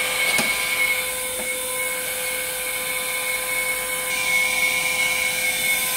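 Automatic hot air welding machine running, its hot air gun blower giving a steady whine over a hiss of air as the machine welds automatically. A single click about half a second in.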